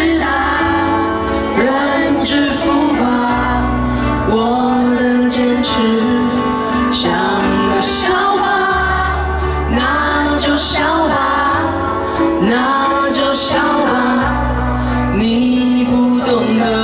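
A woman singing a slow pop song live into a microphone over band accompaniment, with deep bass notes held for several seconds at a time and occasional percussion hits.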